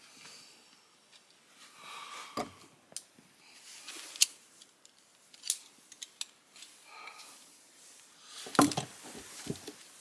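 Metal climbing hardware, a rope brake device and carabiners, clicking and clacking as it is handled and clipped: scattered sharp clicks with soft rustling between them. The loudest is a heavier clack near the end.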